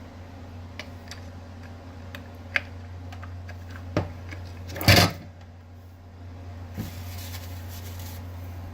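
Scattered light clicks and knocks from parts and tools being handled while a kitchen mixer grinder is taken apart, with one louder knock about five seconds in, over a steady low hum.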